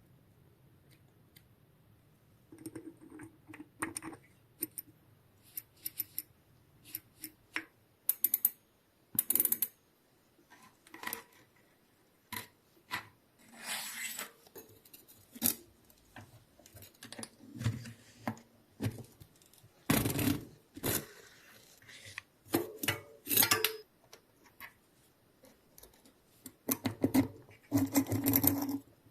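Irregular clicks, clinks and short scraping sounds of small metal parts and tools being handled during bicycle hub work, with a few louder knocks.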